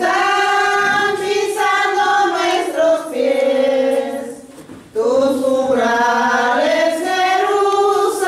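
A group of voices singing a slow church hymn in long held notes, with a short pause between phrases about halfway through.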